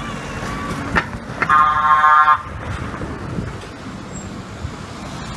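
A horn sounds once, one steady toot lasting just under a second, shortly after a sharp knock, over steady wind and engine noise.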